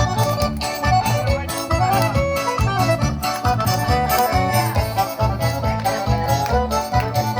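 Accordion-led traditional dance music with a steady bass beat.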